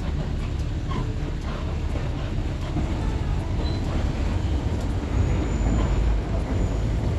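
Steady engine and road rumble heard from on board a moving road vehicle.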